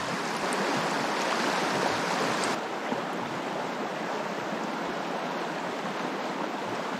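Steady rush of a river running high, an even hiss of fast-flowing water; the brightest top of the hiss drops away abruptly about two and a half seconds in.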